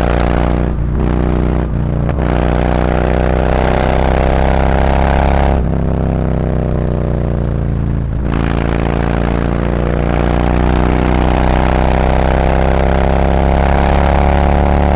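Harley-Davidson Road Glide's V-twin engine through SuperTrapp slip-on mufflers, accelerating on the road. The exhaust note climbs in pitch, with brief throttle-off dips for gear changes about five and a half and eight seconds in, then keeps rising steadily.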